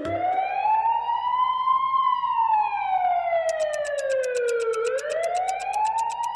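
Police car siren in a slow wail, rising over about two seconds, sliding down for about three seconds, then rising again. A fast, even ticking joins it about halfway through.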